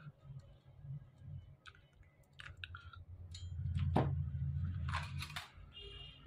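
Handling noise of a small loudspeaker and its wires being moved about on a workbench: scattered light clicks and knocks, with a low rubbing rumble and a few sharper knocks in the second half.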